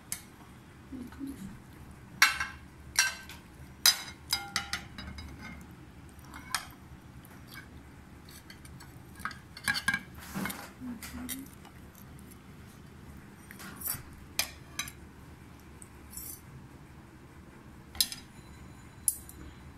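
Metal serving spoons clinking and scraping against ceramic bowls and plates as food is dished out. The sharp clinks come scattered and irregular, with a cluster of louder ones in the first few seconds and a few more near the end.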